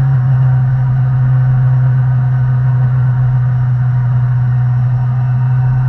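Sport motorcycle engine heard from the rider's seat, pulling steadily in third gear with a constant, unchanging note.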